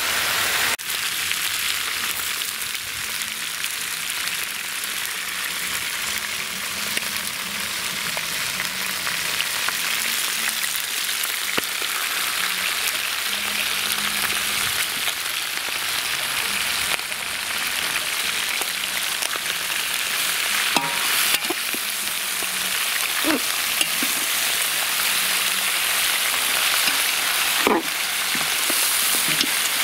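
Hen pieces sizzling as they sear in hot oil in a metal pot, a steady frying hiss: the sound of oil hot enough to brown the meat. In the last third a metal spoon stirs the pieces, with a few short clicks and scrapes against the pot.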